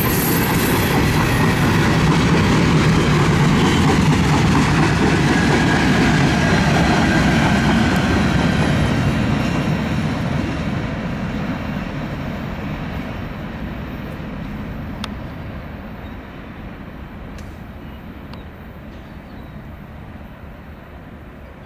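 CSX freight train cars rolling past on steel rails, a steady heavy rumble with a thin wheel squeal over the first several seconds. About halfway through the rumble starts fading steadily as the train moves away, with a few faint clicks near the end.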